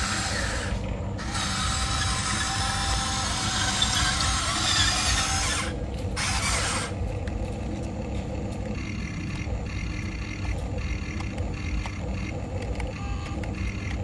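Electric motors and plastic gearboxes of a Huina RC excavator whining as the machine works and slews, with two short breaks. About halfway through the sound turns quieter and more regular.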